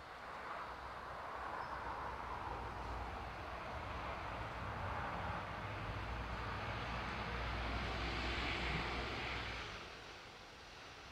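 Engine drone of a passing motor vehicle, swelling over several seconds and dropping away about ten seconds in.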